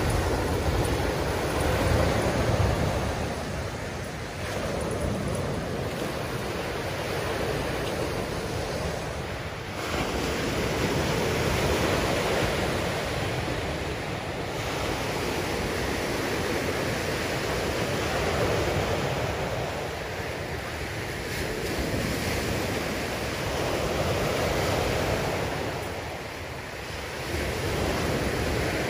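Lake Michigan surf breaking and washing up on a sandy beach: a steady rushing that swells and eases every few seconds as the waves come in.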